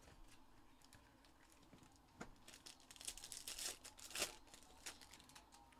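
Foil trading-card pack wrapper being torn open and crinkled. It is faint at first, then a flurry of crackles comes about two seconds in and lasts roughly three seconds.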